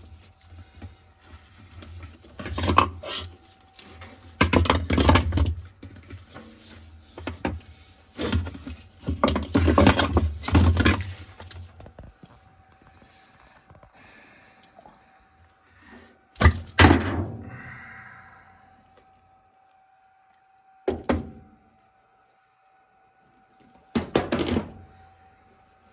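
Thunks, knocks and rattling from a washing machine being handled, bunched together for the first twelve seconds, then three separate sharp knocks, over a faint steady tone.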